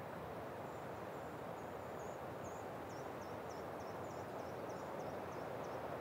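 Steady rush of wind through a stand of stone pines. Over it a small bird calls faintly in thin, high notes: a few drawn-out notes, then from about halfway a quick run of about ten short notes, each dipping in pitch.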